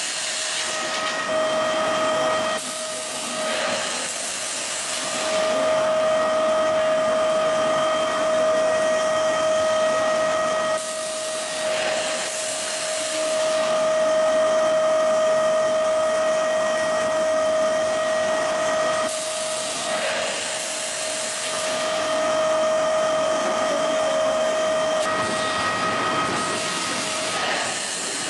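Automatic ice lolly production machine running with a steady whine, and bursts of hissing about every eight seconds.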